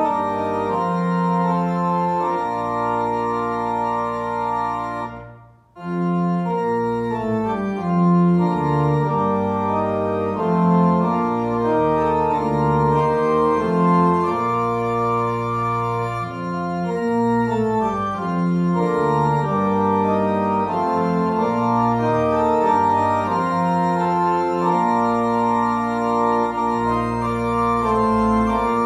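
Organ music playing slow, sustained chords, with a brief break about five seconds in before it starts again.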